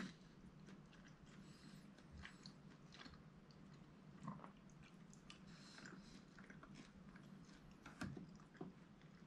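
Faint chewing of a mouthful of steak, with small wet mouth clicks and smacks over a low steady hum.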